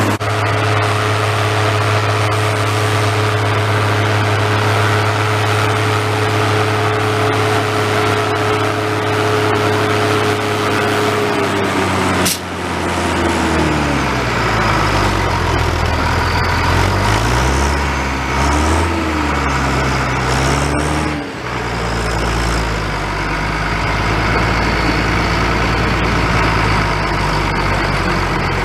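Case IH 1455 XL tractor's six-cylinder diesel engine running steadily under load while ploughing. About halfway through, its pitch dips and rises several times for several seconds, then it settles to a steady note again.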